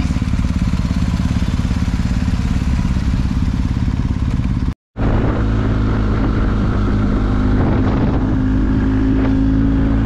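Motorcycle engine running steadily under way on the road, with a short dropout to silence about five seconds in.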